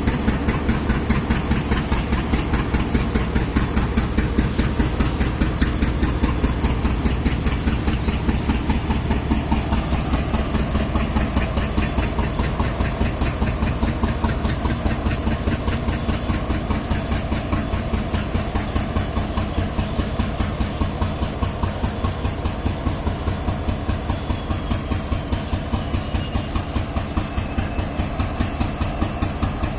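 The diesel engine of an Indian Railways WDG4G locomotive idling with a steady, rhythmic pulsing beat, an idle that sounds weird to the one filming it.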